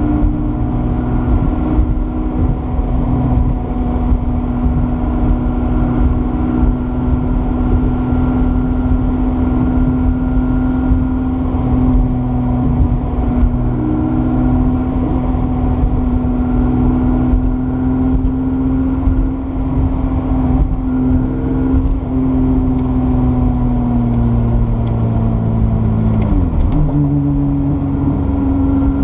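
Toyota 2GR-FE V6 engine swapped into an MR2, heard from inside the cabin, running at steady cruising revs over road and tyre noise. Near the end the engine note dips briefly, then holds at a higher pitch.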